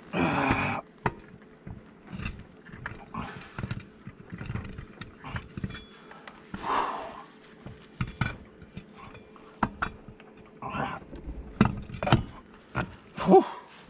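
A man grunting and breathing hard with effort while fitting a tractor's front wheel onto its hub and starting the lug nuts, with scattered metallic clicks and knocks. The loudest grunts come right at the start and near the end.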